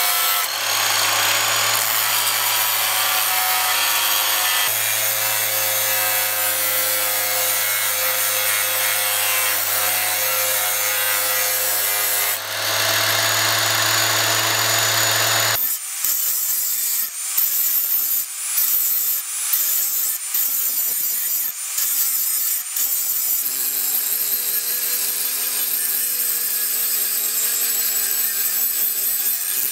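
A 1200 W abrasive cut-off saw's wheel grinding a steel blade blank, a steady motor hum under a dense grinding hiss. About fifteen seconds in it gives way abruptly to an angle grinder grinding the clamped blade in short, broken passes, with a high whine that rises and dips.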